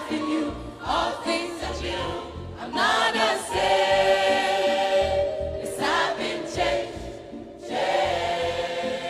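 Gospel song: a choir singing with instrumental backing, over a regular low bass pulse.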